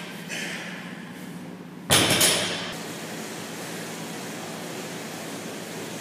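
Loaded barbell with bumper plates lowered from a deadlift and landing on the gym floor about two seconds in: one heavy impact with a short rattle that dies away within about a second. A steady low hum runs underneath.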